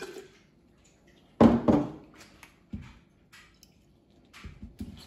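A short splash of hot water poured from an electric kettle into a cup of dissolved egg dye, about a second and a half in, followed by a few soft knocks of the kettle and cups against the table.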